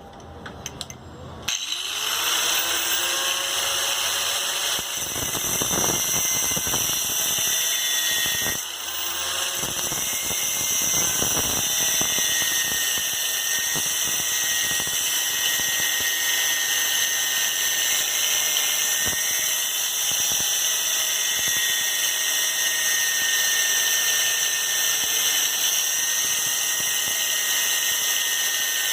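Handheld electric power tool spinning up about a second and a half in, then running steadily with a high whine, easing off briefly once before running on.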